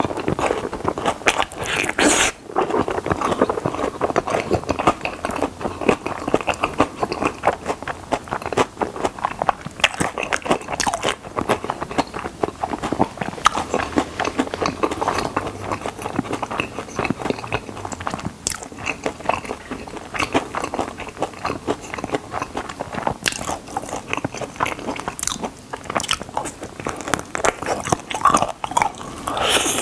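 Close-miked biting, crunching and chewing of crisp-coated chicken drumsticks: a dense, continuous run of crackling bites and chews, with louder crunches about two seconds in and near the end.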